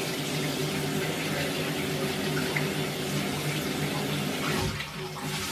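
Mains water running hard, an even hiss with a steady low hum under it. It cuts out briefly near the end, then starts again.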